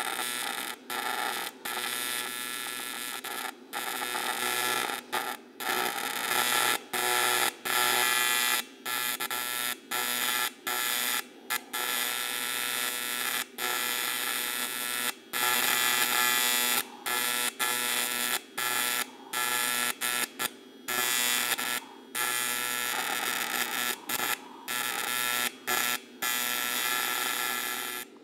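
AC TIG welding arc on aluminum, a loud steady buzz with many brief dropouts, as filler is dabbed into the puddle and the tungsten picks up filler and becomes contaminated, making the arc unstable. The arc cuts off suddenly just before the end.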